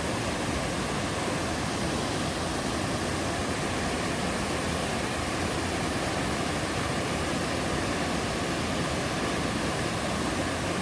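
Waterfall in a mountain valley stream: a steady, unbroken rush of falling water.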